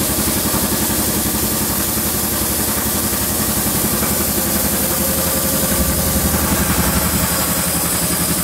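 Laminating machine running steadily: an even mechanical drone with a fast low pulse and a steady hiss over it.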